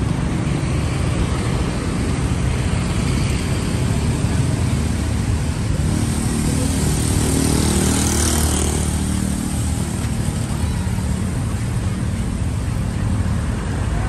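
Steady street traffic noise, with a motor vehicle's engine passing close by about eight seconds in, swelling and then fading away.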